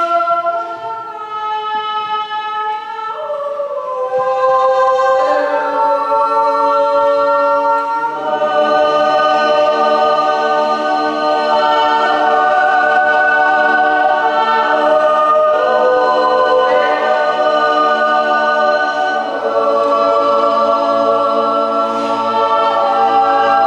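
Swiss yodel choir of men and women singing a cappella in long, held chords. Fewer, higher voices carry the line at first, then low bass voices come in about eight seconds in and the full choir sustains rich chords, with reverberation from the church.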